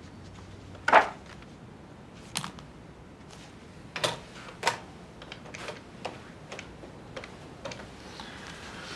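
Sharp knocks and clicks of handling things on an office desk, the loudest about a second in, then a desk telephone handset lifted from its cradle about four seconds in, followed by a run of lighter clicks.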